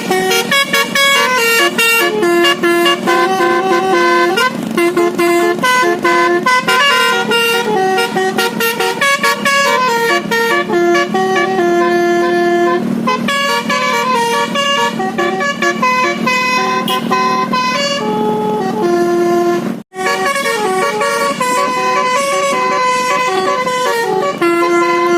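Basuri telolet multi-tone bus horn playing a melody without stopping, its notes stepping up and down in quick, held tones. It breaks off for an instant about twenty seconds in, then carries on.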